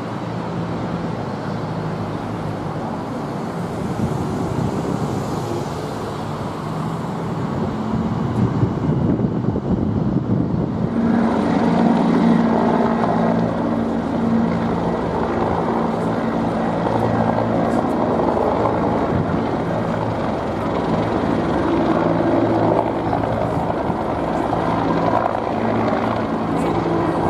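Helicopter flying overhead with a steady drone from its rotor and engine. It grows louder about ten seconds in.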